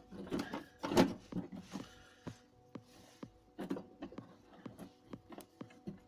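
Scattered clicks and knocks of a plastic car headlamp housing being handled while its lens is worked loose, the loudest knock about a second in.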